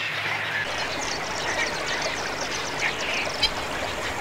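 A chorus of waterbird calls at a breeding colony over a steady background wash, with rapid high-pitched chatter in the first few seconds and one brief, sharper call about three and a half seconds in.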